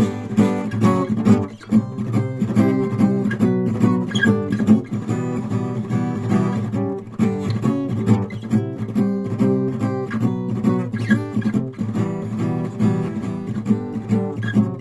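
Acoustic guitar strummed and plucked in an instrumental passage of a song, with no singing.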